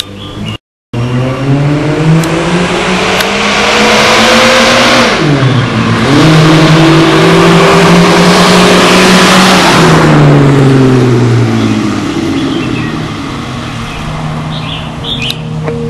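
2300 Abarth car's engine and exhaust accelerating hard: the note climbs, drops sharply at an upshift about five seconds in, then climbs again. Around ten seconds in the throttle is lifted, and the note falls away to a lower steady drone.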